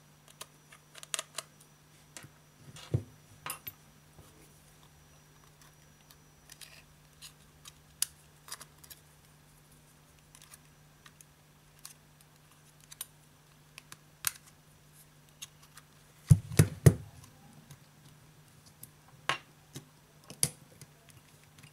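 Small metal hand tools, a screwdriver and tweezers, clicking and tapping against a smartphone's frame and board while its screws and connector cover are removed: scattered light clicks, with a louder cluster of knocks about sixteen seconds in.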